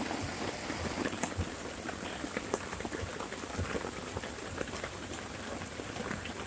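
Heavy rain falling steadily, heard from under a canopy: an even hiss scattered with many small ticks of individual drops.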